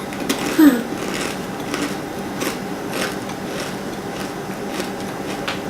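Crunching and chewing of a crispy, shell-textured spicy snack: irregular faint crunches about every half second. A short falling vocal sound comes about half a second in.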